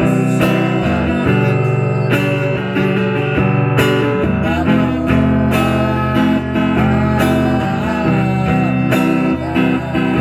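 Acoustic guitar strummed and picked in a homemade song, with wavering sung notes joining from about four seconds in.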